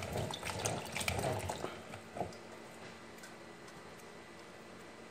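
Water running from a tap and splashing in a sink, with a few light knocks, stopping about two seconds in.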